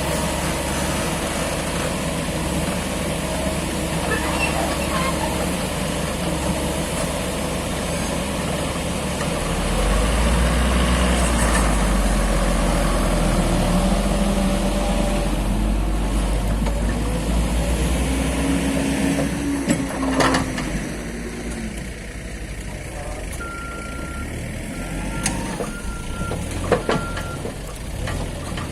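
Heavy diesel machinery working as an excavator loads soil into a light truck. The engine runs steadily and works harder from about ten seconds in, with sharp clanks around twenty seconds. Near the end comes a run of short high beeps from a reversing alarm.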